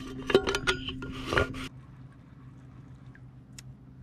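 A run of knocks, clicks and rubbing from objects being handled, over a steady low hum. The knocks stop and part of the hum cuts off about two seconds in, leaving a faint hum with a couple of soft ticks.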